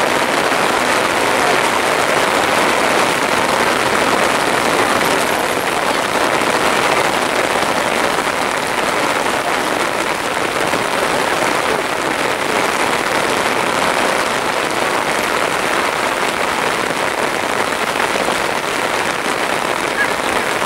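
Heavy rain falling steadily, a dense, even hiss of drops on the ground and nearby surfaces.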